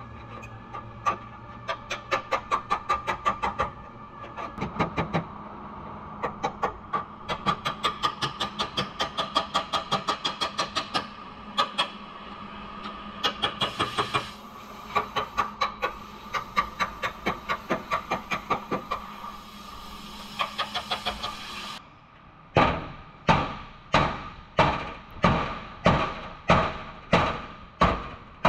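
Hammer blows on car-body sheet metal: quick runs of taps, about four a second, then near the end a slower series of louder blows, about three every two seconds.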